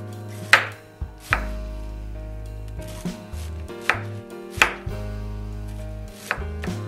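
Chef's knife slicing through a cabbage onto a wooden cutting board: about half a dozen crisp crunching cuts, each ending in a knock on the board, irregularly spaced, over soft background music.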